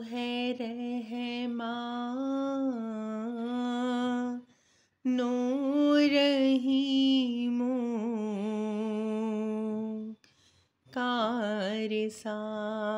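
A solo voice singing an unaccompanied Islamic devotional song in Urdu, in slow, long-held, ornamented phrases. The singing breaks off twice for short pauses, about four and a half and ten seconds in.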